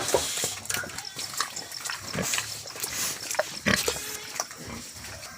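Piglets grunting in short, irregular bursts, mixed with small clicks and knocks.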